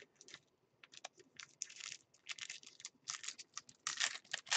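Crinkling and tearing of a hockey card pack wrapper being opened by hand, in quick irregular bursts from about a second in.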